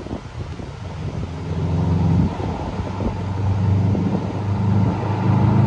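Tuned Subaru Impreza WRX STI's turbocharged 2.5-litre boxer four approaching from a distance, its engine note growing steadily louder, with a short dip about two seconds in.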